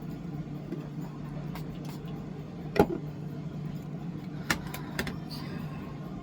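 A few sharp clicks and one louder knock about three seconds in, from a setting-spray bottle and makeup brush being handled, over a steady low hum.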